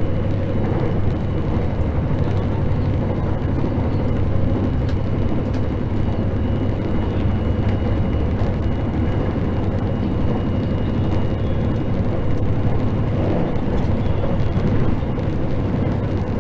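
Interior running noise of a JR 681 series limited express electric train: a steady rumble with a low hum and a faint, thin high whine.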